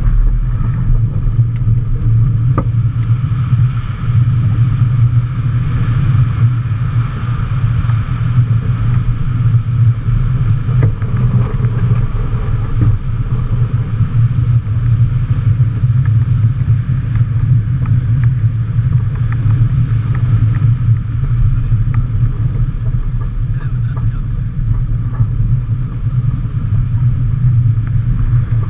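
Steady low rumble of wind buffeting a GoPro microphone over the rush of water along the hull of a racing yacht surfing downwind at 15 knots and more, with a couple of faint knocks.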